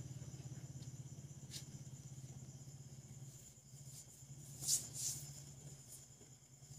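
Mother cat purring, a low, fast-pulsing rumble that fades out about three seconds in. A few short scratchy sounds come through, the loudest a little before five seconds.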